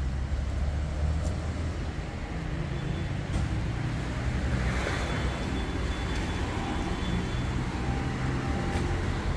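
City street traffic: car engines running and passing, a steady low rumble with a few light clicks.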